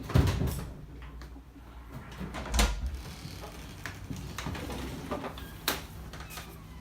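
Knocks and clunks of a washing machine's cabinet being handled while a protective cloth is laid over it: a knock just after the start, a heavier low thud about two and a half seconds in, and a sharp click near the end.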